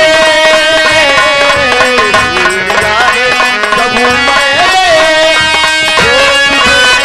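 Live Bhojpuri nautanki folk song: a singer holds long, ornamented notes into a microphone over steady keyboard-type accompaniment and hand-drum strokes, loud through the stage PA.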